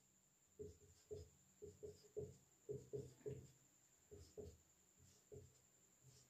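Marker pen writing on a whiteboard: a string of short, faint strokes, a few a second, as letters and subscripts are drawn.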